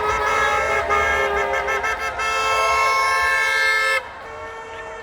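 Several car horns honking at once, overlapping held blasts of different pitches, from drivers honking in support of a street protest. The longest blast cuts off suddenly about four seconds in, leaving a fainter horn.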